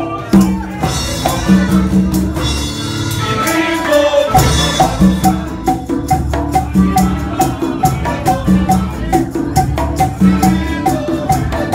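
Upbeat Latin-style band music with a steady beat, played on accordion, violin, guitar, double bass and hand percussion. The bass drops out briefly about four seconds in, then the beat carries on.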